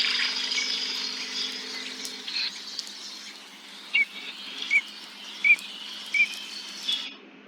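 Birdsong: a dense chorus of high chirps and twitters, with one short call repeated four times, about three-quarters of a second apart, in the second half. It starts suddenly and cuts off just before the end.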